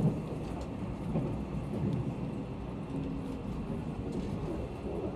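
Steady low rumble of a locomotive-hauled sleeper coach running on the line, heard from inside the car.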